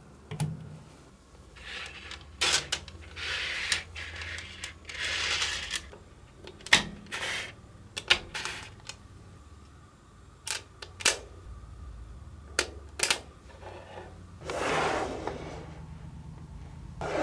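Small magnetic balls clicking and snapping together as they are fitted and pulled apart by hand, with many sharp separate clicks and a few longer scraping, rattling stretches as balls slide and roll on the table.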